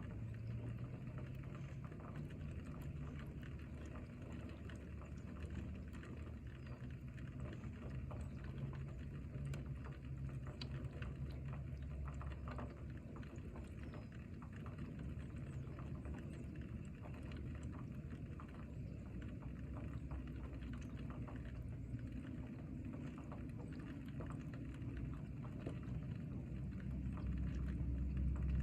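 Steady rain falling, with many separate drops heard as small ticks over a constant low rumble.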